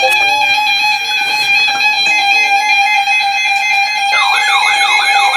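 Weather radio alert alarms sounding at once for an incoming warning: a steady, high-pitched alarm tone with short broken beeps beneath it. About four seconds in, a rapidly warbling, siren-like alert joins.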